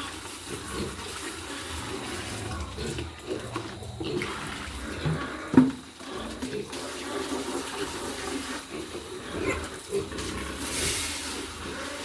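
Water splashing and running as containers in a pig pen are washed out, with pigs grunting. A sharp knock about halfway through is the loudest sound, and a brief hiss of water comes near the end.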